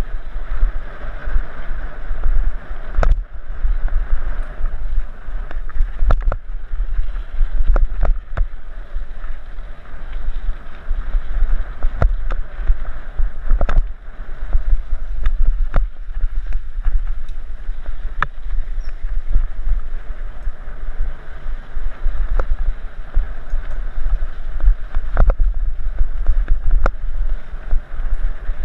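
Mountain bike riding fast over a dirt trail, heard through a helmet-mounted GoPro Hero 3 Black in its housing: steady wind buffeting and low rumble, broken by irregular sharp knocks and rattles as the bike hits bumps.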